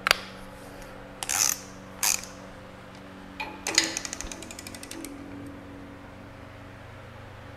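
Ratchet torque wrench on a clamp-stud nut: a sharp click and two short scraping knocks as it is handled and fitted, then a quick run of about a dozen ratchet clicks over a second, fading, as the handle swings back. The ratcheting comes while the nuts holding down a new cylinder liner are being tightened.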